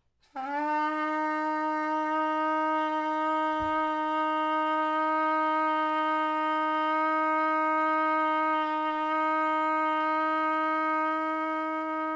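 A trumpet played with its tuning slide pulled out, so that only the mouthpiece and lead pipe sound, holds one steady long-tone note for about twelve seconds. The note is a ten-second-note exercise played with steady air. The pitch scoops up slightly as the note starts, then holds level until it stops sharply.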